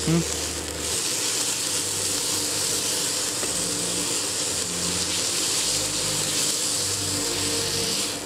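Chopped Swiss chard and pine nuts sizzling steadily in a hot frying pan as a spatula stirs them.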